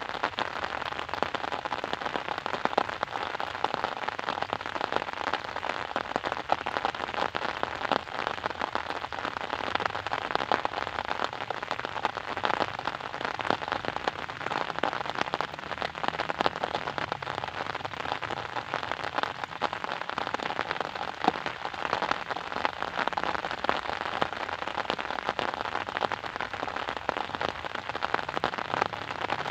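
Steady rain falling and pattering on a surface, a dense patter of many small drop hits.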